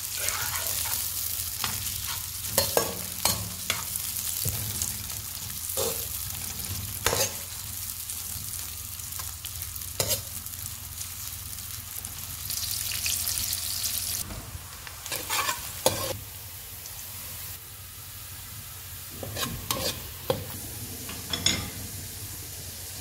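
Sliced onions sizzling in hot oil in a metal kadai, frying toward golden brown, with a metal slotted spoon scraping and clinking against the pan every second or two as they are stirred.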